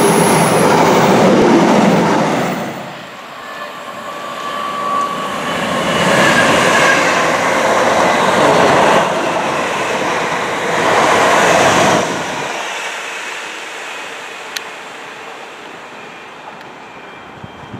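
A container freight train running past close by until about two and a half seconds in. Then an electric multiple-unit passenger train passes at speed, with brief high whines, loudest from about six seconds in and cutting off abruptly at about twelve seconds. After that, quieter rail noise fades away.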